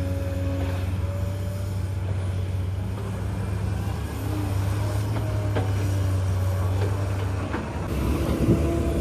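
Excavator diesel engine running steadily, with a faint whining tone that shifts slightly in pitch and a few sharp knocks; the sound changes near the end, with more knocks.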